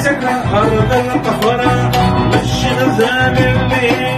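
Oud and electronic keyboard playing a bedoui song in a modern arrangement, with a man singing over them.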